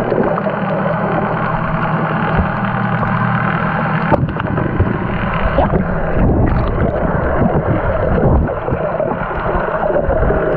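Outboard boat engine running, heard from underwater: a steady, muffled drone.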